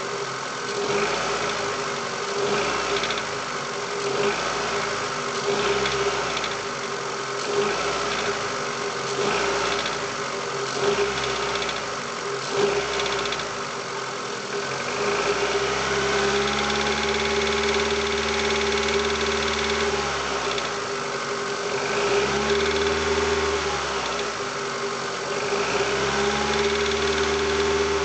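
Cold Mitsubishi 4G18 1.6-litre four-cylinder engine being revved and let drop back again and again, briefly at first, then held up for a few seconds twice, with a knock as the revs fall back after the throttle is released. The owner suspects the knock comes from a partly clogged hydraulic lash adjuster.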